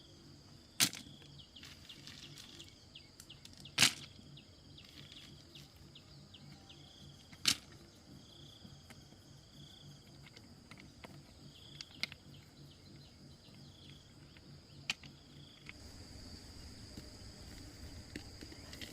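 Four sharp knocks, a few seconds apart, from something being struck, over steady high chirring of insects with short repeated chirps.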